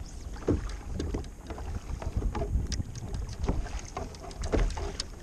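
Wind buffeting the microphone over water lapping against a kayak hull, with irregular small knocks and splashes.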